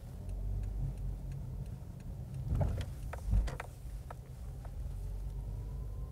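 Car running and moving off, a steady low rumble heard from inside the cabin, with scattered light ticks and two low thumps a little past halfway.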